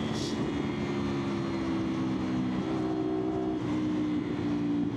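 CFMOTO 450SR parallel-twin engine running at a fairly steady speed while riding, its pitch stepping slightly up and down, with wind and road noise underneath.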